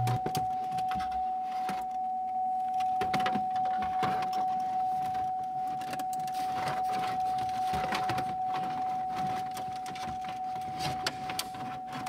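Plastic dash trim panel rustling and clicking as it is worked into place behind the steering wheel, with keys jingling on the ring in the ignition. A steady high tone runs underneath.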